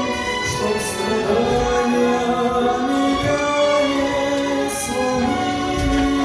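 Slow music with long held notes and wordless choral singing, an instrumental break in a Russian ballad.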